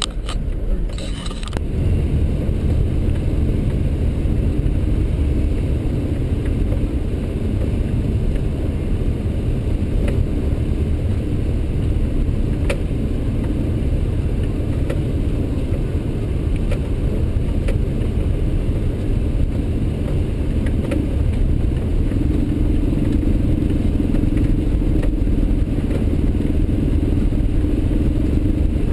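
A four-wheel-drive vehicle crawling over a rocky dirt trail, heard from inside the cab: steady engine and tyre rumble with a few small knocks and rattles. The engine note grows a little stronger about two-thirds of the way in.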